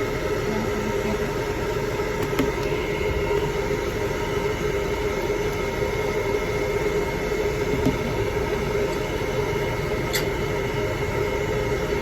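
Hair dryer running steadily: an even blowing noise with a constant motor hum.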